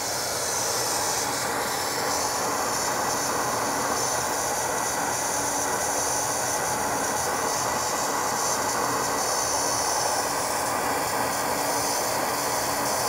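SuperFlow flow bench fans drawing a steady rush of air through the exhaust port of a ported 12-valve Cummins cylinder head at 0.100 in valve lift, with a whistle in it. The airflow is turbulent and unsettled at this lift, which the tester hears as the port stuttering.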